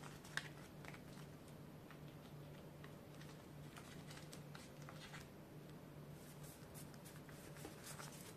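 Faint handling noises: scattered light taps, clicks and rustles of a card in a plastic binder envelope and of polymer banknotes being picked up and shuffled.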